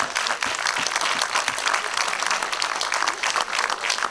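Audience applauding: many hands clapping at once, dense and even throughout.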